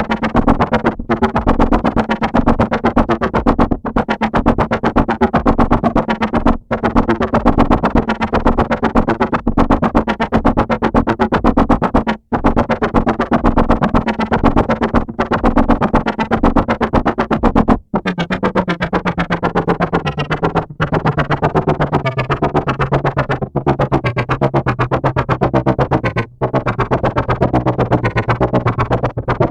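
Arturia Buchla Easel software synthesizer playing a dense, rapidly pulsing patch over a steady low drone. The drone steps down in pitch about two thirds of the way through, and the sound briefly cuts out about every three seconds.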